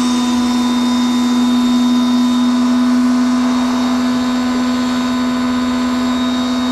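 Hyundai 1400-watt electric pressure washer running steadily with the gun's trigger held, its carbon-brush motor and pump giving a loud, even hum. A hiss of the wide spray fan hitting the car's side panels runs with it.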